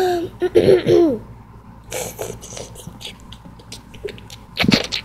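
A child's wordless, wavering vocal sounds for about the first second, then soft rustling and scattered clicks of toy figurines being handled on a wooden board, with one louder knock near the end.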